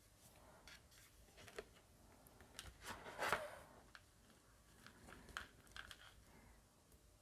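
Faint handling of paper and card: scattered small taps and rustles, with a louder scratchy rustle of paper about three seconds in.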